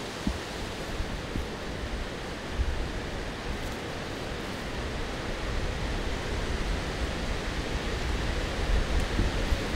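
Gusty wind of about 20 miles an hour rushing steadily through the woods, with low buffeting of wind on the microphone that grows stronger in the second half.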